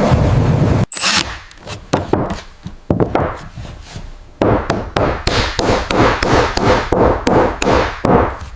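A loud low rumbling cuts off about a second in. Sharp knocks follow, scattered at first, then settling into an even run of about three or four a second.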